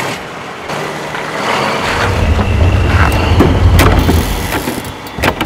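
Truck engine running as a truck pulls away, a deep rumble that grows louder about two seconds in.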